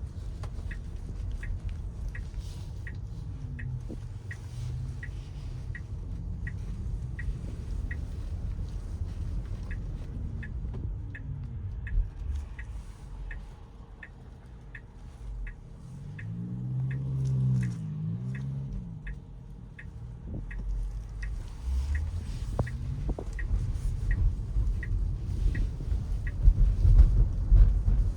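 Car turn-signal indicator ticking steadily, about twice a second, over low road and tyre rumble. The rumble swells about halfway through and grows louder near the end.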